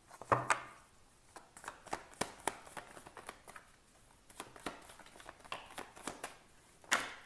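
A tarot deck being shuffled by hand: an irregular run of crisp card flicks and snaps, with louder ones about a third of a second in and near the end.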